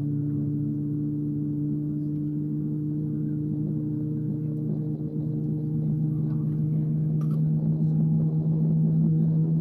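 Airbus A321neo cabin while taxiing: a steady engine drone made of several low tones, growing a little louder about halfway through.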